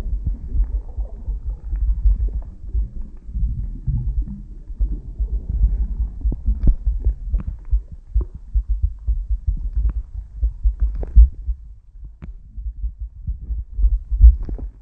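Muffled underwater sound picked up by a camera below the surface: irregular low thumping and rumbling of moving water, with scattered sharp clicks.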